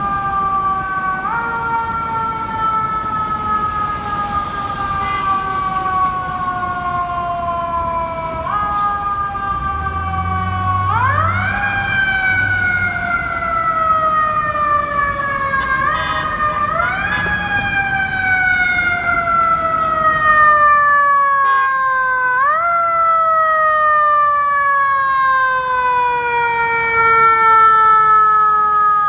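Fire engine's siren, wound up again and again: each time it jumps up sharply in pitch, then slides slowly down, growing louder as the engine draws near.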